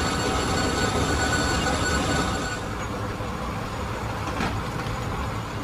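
Metal lathe boring out the bore of a spinning iron blank, the boring tool cutting with a steady high whine of several pitches over the machine's rumble. About two and a half seconds in, the whine stops and only a quieter, lower machine rumble remains.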